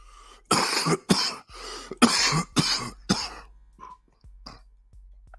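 A person coughing hard, about six coughs in quick succession over some three seconds, followed by a couple of quieter throat-clearing sounds.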